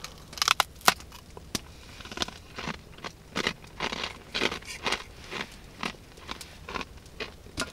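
A metal spoon clicks against a metal camping pot a few times, then a person chews food close to the microphone, about two chews a second.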